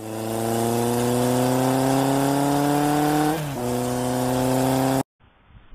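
Engine sound effect: a motor accelerating with a slowly rising pitch, a brief dip like a gear change about three seconds in, then climbing again until it cuts off abruptly about five seconds in.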